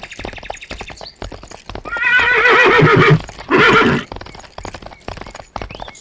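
Horses' hooves clip-clopping, with a loud, quavering horse whinny about two seconds in followed by a shorter one.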